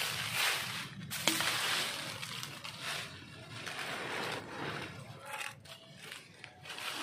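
Dry leaves crunching and rustling under a stick broom, with a sharp click about a second in. After about three seconds it turns to quieter rustling of the woven plastic compost bag and leaves being handled.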